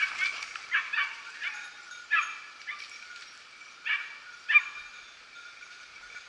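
Hunting dogs barking and yelping on a wild-boar drive: a string of short, high-pitched cries at uneven intervals, the loudest about four and a half seconds in.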